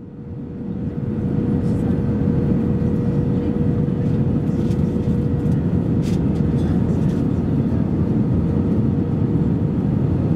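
Airliner cabin noise inside an Airbus A319 on approach: a steady rush of engine and airflow noise with a faint steady hum running through it, fading in over the first second.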